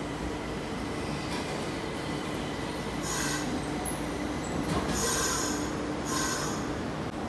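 Nagoya Municipal Subway Higashiyama Line 5050-series train pulling into the platform. Its running noise grows louder from about three seconds in, with several bursts of high squealing from the wheels and brakes.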